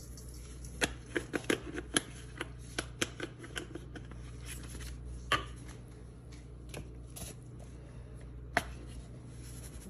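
Dried parsley being shaken from a spice jar over raw lamb chops in a stainless steel bowl: a quick run of clicks and taps about a second in, then a few single clicks later on.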